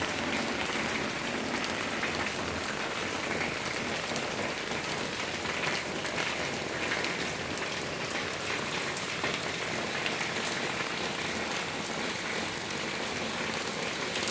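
Steady rain falling, a dense even hiss speckled with many small ticks of drops striking a surface.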